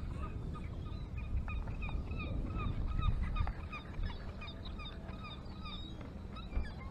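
Gulls calling over and over, short bent cries overlapping one another, over a steady low rumble of surf and wind.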